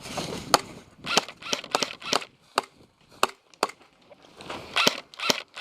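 Skirmish-game pistols firing single shots: about a dozen sharp pops at irregular intervals, some in quick pairs, with a cluster near the end.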